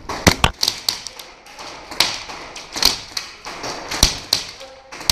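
Airsoft skirmish sounds: a scattered run of sharp taps and cracks at irregular intervals, of the kind made by airsoft guns firing and BBs striking wood.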